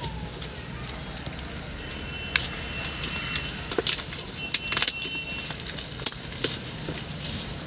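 Clear plastic shrink-wrap crinkling and tearing in irregular crackles as it is peeled off a cardboard binoculars box by hand, over a steady low hum.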